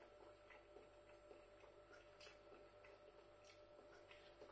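Near silence: room tone with a faint steady hum and a couple of faint clicks.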